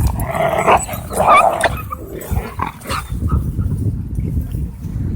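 Dogs barking and yipping as they wrestle, with two loud, rough bursts in the first two seconds and shorter barks after them.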